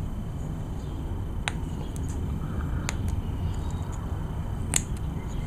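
A few sharp light clicks, three over several seconds with the last the loudest, over a steady low hum: small metal parts of a hedge trimmer's diaphragm carburetor being handled as the old pump gasket, breaking apart, is worked off.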